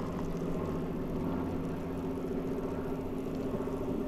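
Steady riding noise of a bicycle rolling along a paved street: tyre and wind noise on a handlebar-mounted camera, with a steady low hum under it.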